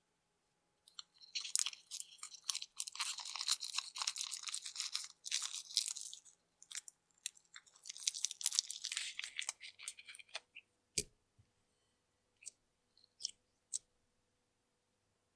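Clear blue slime crackling and squelching as it is squeezed and peeled out of a cut-open yellow rubber balloon, with fingers rubbing the rubber. The crackling comes in two long stretches, then there is a single knock about eleven seconds in and a few light clicks.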